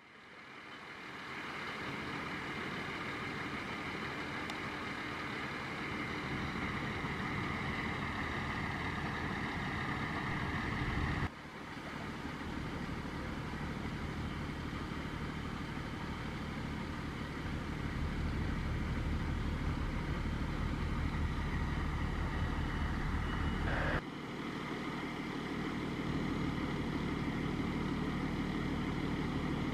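A fire engine's motor running steadily, in three stretches split by abrupt cuts about 11 and 24 seconds in.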